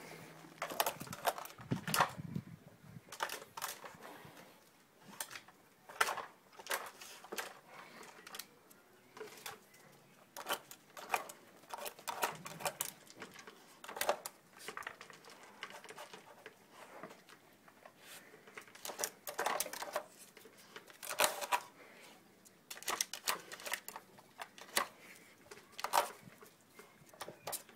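Hard plastic dog puzzle feeder clicking and clattering in irregular knocks as a small dog paws at its top disc and noses its lidded compartments to get at the food.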